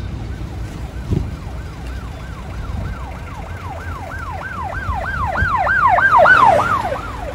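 Siren wailing in quick up-and-down sweeps, about three a second, growing louder to a peak about six seconds in and then fading as it passes, over a low traffic rumble, with a single thump about a second in.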